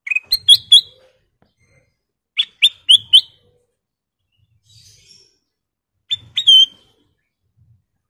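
Ruby-throated bulbul (kutilang emas) singing: three short phrases of three or four quick, clear whistled notes, a few seconds apart.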